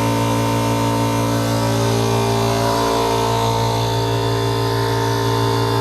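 A 25-litre air compressor running steadily, a loud even motor hum with a stack of steady tones. The box door is still open, so the compressor is heard unmuffled.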